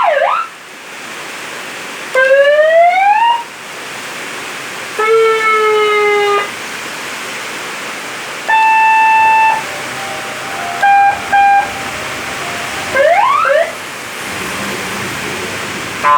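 Seven-sound electronic horn on a Yamaha NMAX scooter stepping through its patterns in separate short blasts: the tail of a siren yelp, a rising whoop, a steady note, a steady beep, two short beeps, then fast rising yelp sweeps. A steady hiss runs underneath.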